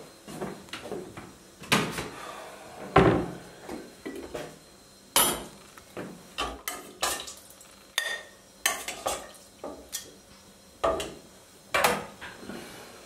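Stainless steel pots, lids and dishes clattering as they are handled at a kitchen sink and stove: a run of irregular knocks and clanks, a few of them ringing briefly.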